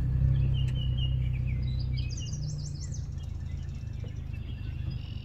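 An engine idling with a steady low hum, loudest in the first two seconds, while songbirds call, with a quick rising trill about two seconds in.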